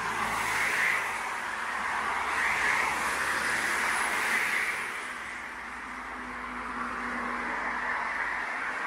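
Road traffic: a steady rush of tyre noise from cars passing close by, swelling and fading as each goes past and easing a little about five seconds in.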